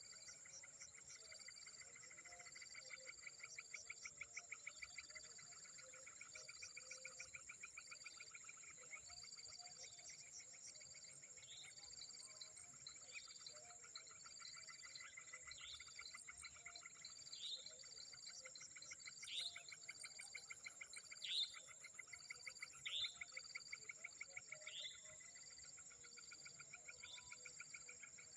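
Faint insect chorus: a steady high-pitched drone with pulsed trills layered over it. From about twelve seconds in, a bird joins with short falling notes repeated every second or two.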